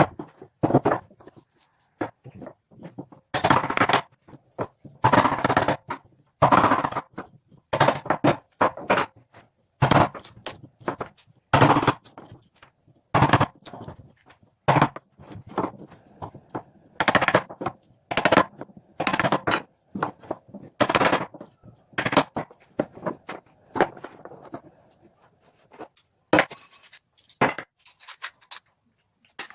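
Hand-tool work on a pine block: irregular short, noisy strokes, about one or two a second, with brief pauses between them.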